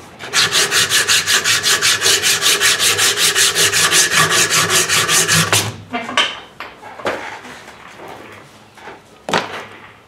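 Sandpaper strip pulled back and forth, shoeshine-style, around a carved wooden duckling lure held in a vise: fast, even rasping strokes for about five seconds. Then quieter, irregular scraping and handling, with a sharp knock near the end.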